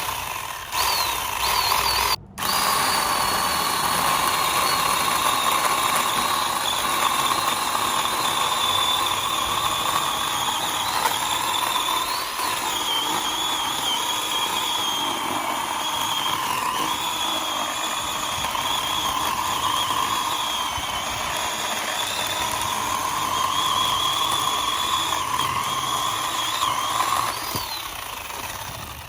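Ryobi One+ 18V 10-inch cordless chainsaw running with a steady electric whine while cutting through a thick piece of wood larger than the saw is rated for. The pitch sags at times under load. The motor stops briefly about two seconds in, then runs on until it winds down near the end.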